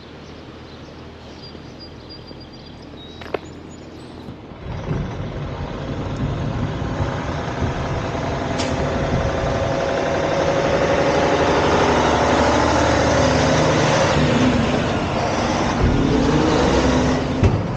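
Kenworth T800 semi truck's diesel engine pulling past. It comes in about four or five seconds in, grows loud as the truck nears, and eases off near the end as it moves away.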